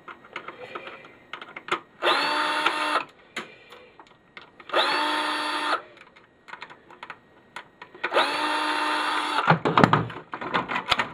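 A power drill-driver fitted with a small bit running in three short bursts of about a second each, the last a little longer, backing screws out of a printer's casing. Small plastic clicks and knocks from handling the parts come between the bursts.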